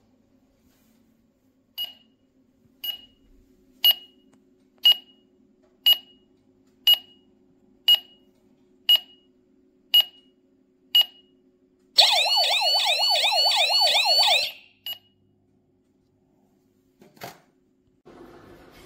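YISEELE wireless home alarm system beeping once a second, ten short high beeps, then its siren sounding for about two and a half seconds with a rapid warbling wail that cuts off suddenly, followed by one more short beep.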